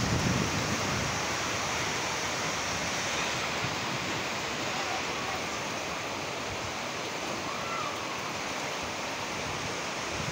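Steady rain falling on corrugated metal rooftops, an even hiss. Wind buffets the microphone briefly at the start.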